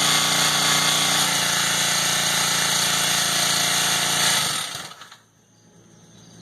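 Honda gas-engine pressure washer running loud and steady after a pump repair. About a second in its low engine note changes. A little past four seconds it stops and runs down to near quiet within about half a second.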